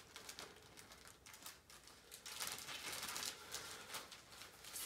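A plastic bag and paper inserts crinkling and rustling as they are handled: a run of small crackles, busiest in the middle.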